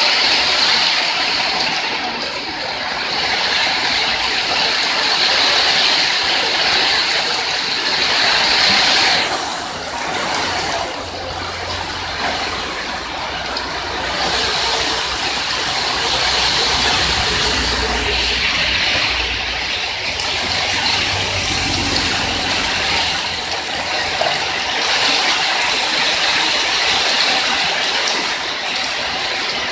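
Heavy rain pouring steadily, a dense even hiss. A low rumble runs under it from about ten seconds in until past the twenty-second mark.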